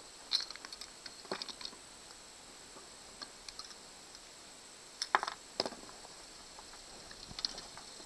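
Small sharp clicks and scrapes of a screwdriver working a handheld trolling-motor remote apart and prying the CR2032 coin cell from its holder on the circuit board. They come in scattered clusters, the loudest about five seconds in.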